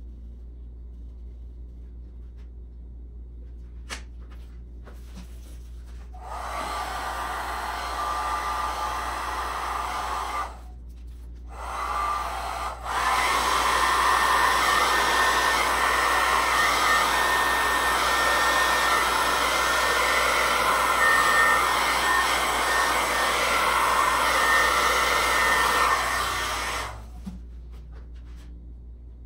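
Small hand-held hair dryer blowing air across a board of wet epoxy resin. It switches on a few seconds in, cuts out for a moment, then runs again louder and steady until shortly before the end.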